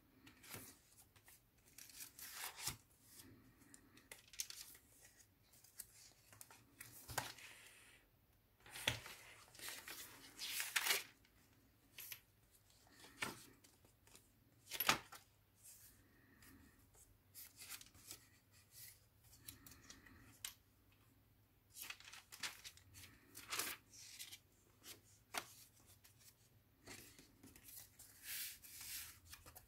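Paper pages of a handmade junk journal turned and handled by hand: a series of short, irregular paper rustles and flaps with quiet gaps between them.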